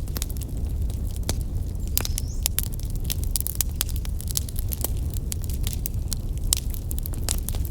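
Bonfire burning: a steady low rumble of the flames with frequent, irregular sharp crackles and pops from the burning wood.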